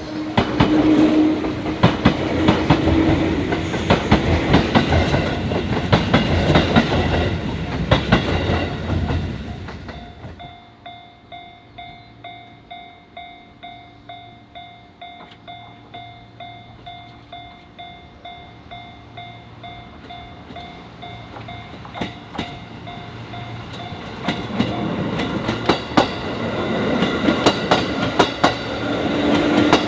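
A train runs over a level crossing with the clickety-clack of its wheels on the rail joints. It then fades out, leaving the crossing's warning bell ringing in an even beat of about one and a half dings a second. Another train's noise grows loud again near the end.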